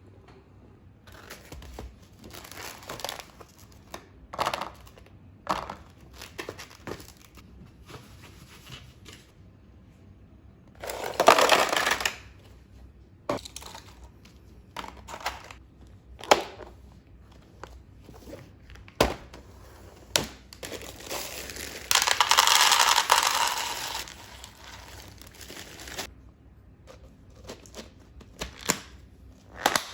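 Plastic packaging crinkling and rustling as food and containers are handled, with scattered clicks and knocks. Two longer, louder bursts of crinkling come about a third of the way in and about three-quarters of the way in.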